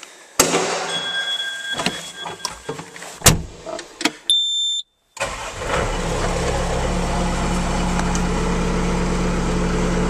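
Knocks and clatter, then a short electronic beep, then about five seconds in the Bobcat S160 skid steer's turbocharged Kubota four-cylinder diesel starts and settles into a steady idle.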